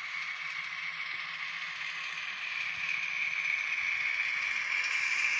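Running sound from the onboard sound decoder of a ScaleTrains N scale GTEL 'Big Blow' turbine model, played through its tiny speaker: a steady hissing rush that slowly grows louder, with a faint low hum that fades out about halfway through.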